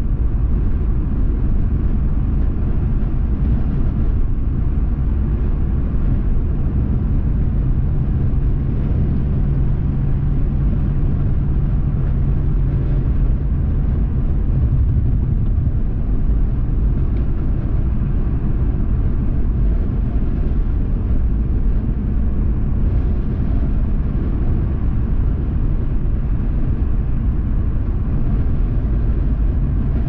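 Car driving at steady road speed: a continuous low rumble of road and engine noise, with a faint steady engine hum standing out for several seconds in the middle.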